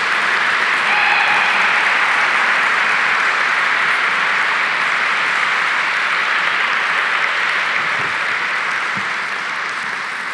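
Audience applauding: sustained clapping that holds steady and slowly tapers off near the end.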